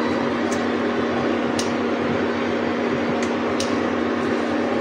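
Steady appliance hum with fan noise, with a few faint light clicks as the metal candle mould halves are handled.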